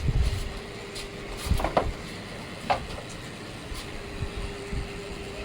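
A few dull thumps and knocks as a ram is handled and let out of its shed pen, over a faint steady hum.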